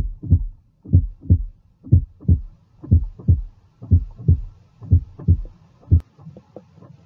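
Normal heart sounds heard through a stethoscope: a regular two-beat 'lub-dub' rhythm of the first and second sounds (B1 'tum', B2 'tá'), about one pair a second. The first sound of each pair is stronger, longer and lower; the second is shorter and higher. This is a healthy heart's normal rhythm. About six seconds in, the strong beats stop and only fainter ticks remain.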